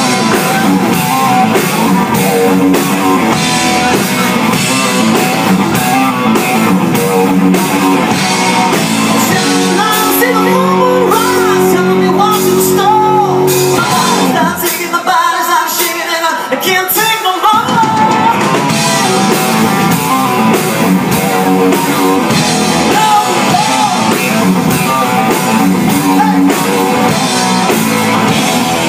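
Live rock band playing: a male singer singing over electric guitars and a drum kit. Around the middle the band holds long steady notes, then the full band comes back in.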